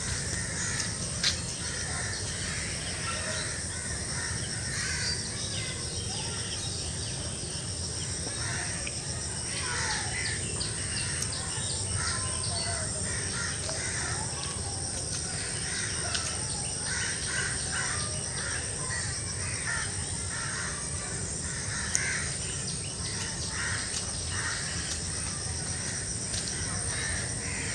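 Crows cawing repeatedly, with other birds calling, over a steady high-pitched tone.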